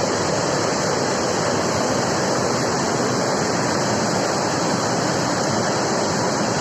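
River in flood: a loud, steady rush of water.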